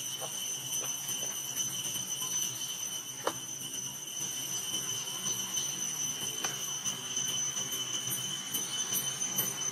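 Insects droning steadily at a high, even pitch, a cicada-type chorus, with a few faint short clicks, clearest about three seconds and six and a half seconds in.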